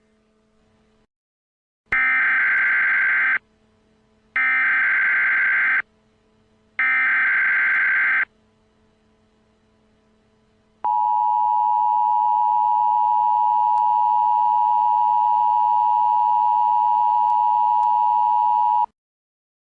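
Emergency Alert System alert tones: three loud bursts of SAME header data chirps about a second apart, then the two-tone EAS attention signal held steady for about eight seconds before cutting off suddenly.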